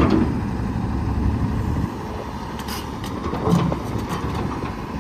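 Low, steady rumble of a running vehicle engine, a little louder in the first two seconds, with a few faint clicks.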